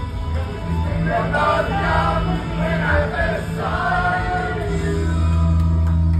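Several voices singing into microphones over loud backing music played through a sound system, with a deep steady bass that gets heavier about five seconds in.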